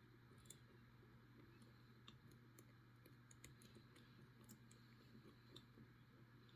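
Faint, irregular metallic clicks and ticks, a dozen or so, from lever picks working inside an ERA 5-lever insurance padlock as it is being picked, over a low steady hum.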